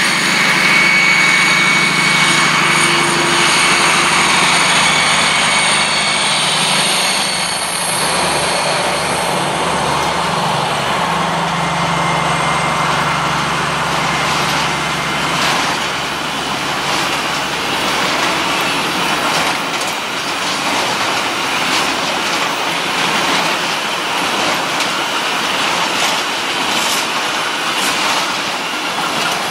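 Two Class 218 diesel-hydraulic locomotives with MTU 12V 956 TB11 V12 engines, working together at full power to accelerate a heavy car-shuttle train, run with a loud engine drone and a high whine. After about twelve seconds the engine sound fades and the loaded wagons take over, their wheels rolling and clacking over the rail joints.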